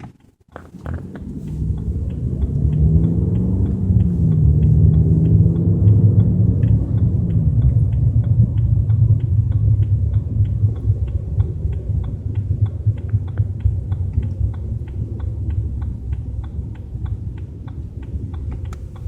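Low rumbling drone heard inside the cabin of a BMW 320i at road speed, the unexplained rumble that shows up around 30–40 km/h. The engine note rises as the car picks up speed in the first few seconds, then settles into a steady low rumble with a faint, fast regular ticking.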